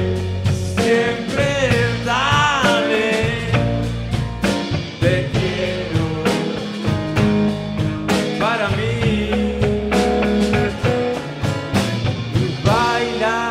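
Live band playing a rock-blues song with drum kit, bass, acoustic and electric guitar and electric keyboard, its lead line bending up and down in pitch about two seconds in and again past the middle.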